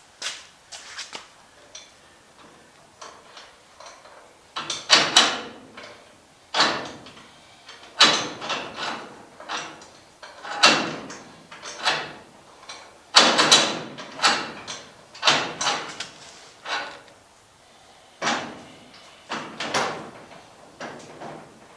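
Hand tools working on the bolts that hold the truck bed: a series of short rattling, clanking strokes, roughly one every second or two, quieter in the first few seconds.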